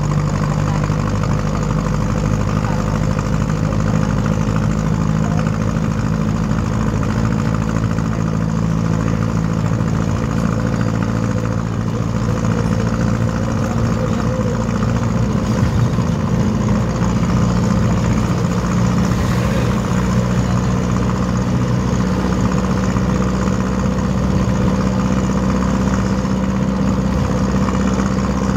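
A jeepney's Mitsubishi 4D30 four-cylinder diesel engine running steadily, with an even, low engine note that barely changes in pitch.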